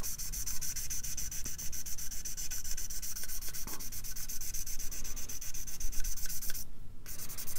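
Very fine-grit sanding stick rubbed rapidly back and forth over a plastic model kit part, several strokes a second with a short pause near the end, smoothing out a seam line.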